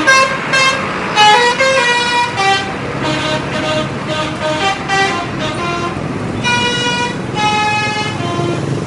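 A bus's 'telolet' musical air horn plays a tune of short stepped notes, ending on two longer held notes, over the bus's engine running.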